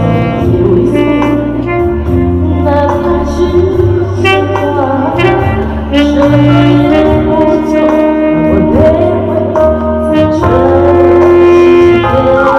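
Live band playing a slow, jazzy song, with a saxophone playing long held notes over the accompaniment.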